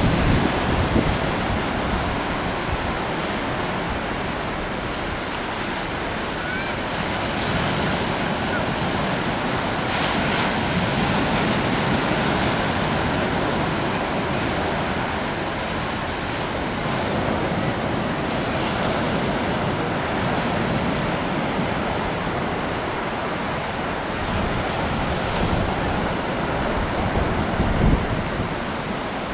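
Wind gusting over the microphone with an irregular low rumble, over a steady wash of choppy river water.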